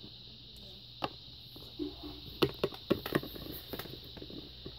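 Small plastic toy figurines handled and set down on a tabletop: a few light clicks and taps, one about a second in and a quick cluster around the middle, over a steady background hiss.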